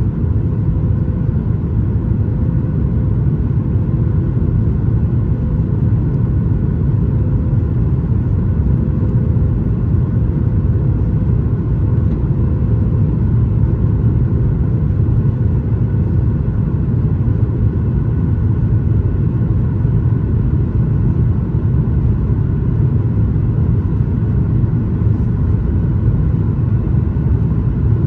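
Cabin noise of a Boeing 737 MAX 8 under way: a steady, loud low rumble from its CFM LEAP-1B engines and the airflow, with a faint steady hum above it.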